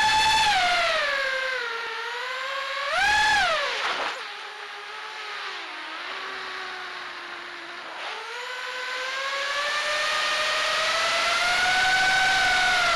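FPV racing quadcopter's 2203 2300kv brushless motors spinning 5-inch tri-blade bullnose props, heard through the onboard camera: a whine that jumps up in pitch with two sharp throttle punches, at the start and about three seconds in, each sliding back down. After a lower stretch it climbs again from about eight seconds in and holds high near the end.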